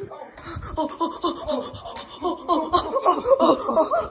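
People laughing hard in quick, choppy bursts, growing louder through the second half.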